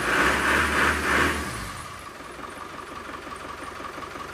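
Land Rover Discovery engine running, hot-wired off a separate battery on its first attempt to start it. It surges about three times as it is revved by hand at the engine, then drops to a quieter steady idle about one and a half seconds in.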